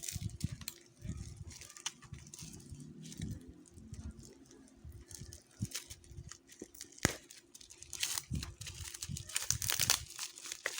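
Plastic bubble wrap being crumpled and torn apart by hand: irregular crinkling and crackling with sharp clicks, busiest near the end.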